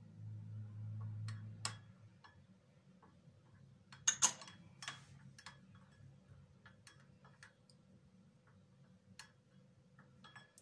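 A spoon clinking and scraping against a small dish while a mixture is stirred: scattered light clicks at uneven intervals, with a louder scrape about four seconds in. A low hum stops about two seconds in.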